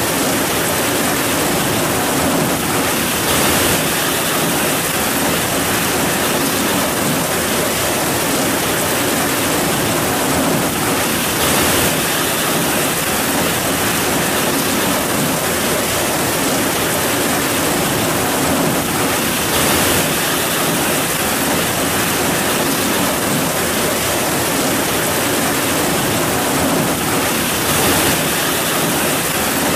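Heavy rain falling steadily, a dense even hiss that swells slightly every several seconds.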